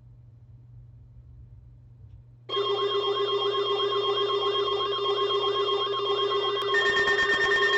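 Weather radio emergency alert tone cutting in abruptly about two and a half seconds in: a loud electronic alarm of steady tones with a warbling tone rising and falling over them, about two and a half warbles a second, and a higher tone joining near the end. It signals an incoming flood warning.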